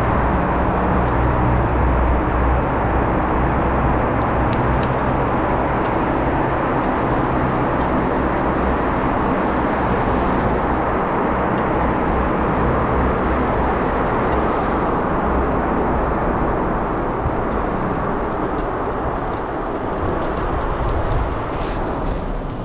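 Steady rushing noise of a bicycle ride heard from a handlebar-mounted camera: wind and rolling noise with a strong low rumble, echoing inside a road tunnel, and faint clicks here and there.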